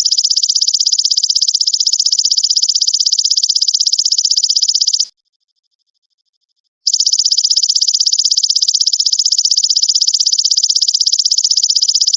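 Belalang emas (golden grasshopper) trilling: a rapid, high-pitched pulsed buzz in two long phrases of about five seconds each, with a clean silent gap of nearly two seconds between them about five seconds in.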